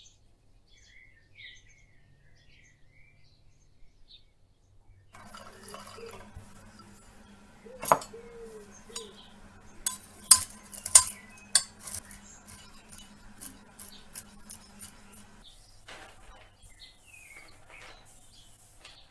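Chef's knife chopping walnuts on a hard cutting board: a run of sharp knocks as the blade strikes the board, the loudest about eight seconds in and three or four between ten and twelve seconds. Faint bird chirps before the chopping starts.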